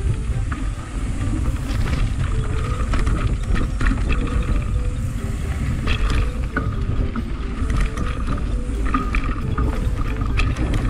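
Mountain bike riding over a dirt singletrack, heard from a camera mounted on the bike: a steady low rumble of wind and tyre noise with frequent clicks and rattles from the bike jolting over bumps.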